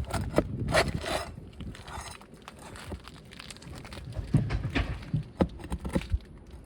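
Metal pry bar working deep roofing nails loose under asphalt 3-tab shingles: irregular scrapes and sharp knocks in two bursts, one near the start and one from about four to six seconds in.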